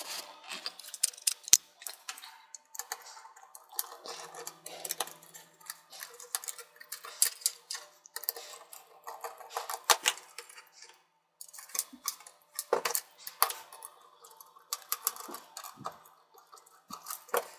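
Irregular small clicks and ticks of a screwdriver working the small touchpad screws out of a Lenovo ThinkPad T540p's plastic palmrest, with light rattles as the screws and plastic parts are handled.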